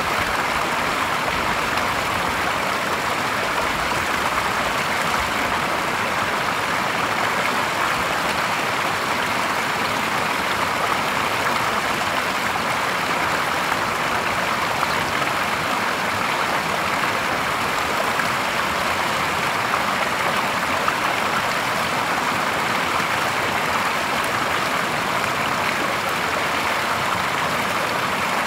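Water falling in a small cascade from the stone bank into a shallow stream, a steady splashing rush.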